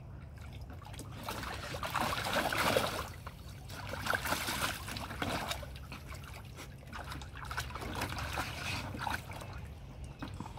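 A young dog splashing and sloshing in a shallow plastic kiddie pool, in uneven bursts; the loudest splashing comes about two to three seconds in, with more around four to five and eight to nine seconds in.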